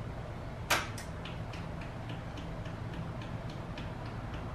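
A switch clicks once on the stripped Honda Ruckus scooter, then a light, even electrical ticking starts, about three ticks a second, while the engine does not start because the kill switch is on.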